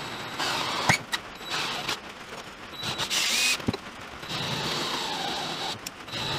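Cordless drill drilling into a strip of aluminium ladder stock, running in several short runs with brief pauses between, a steady motor whine over the cutting noise, and a sharp knock or two in the gaps.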